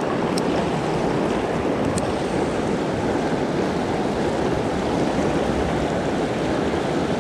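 Shallow river rapids rushing steadily, a loud continuous water noise, with two faint ticks in the first two seconds.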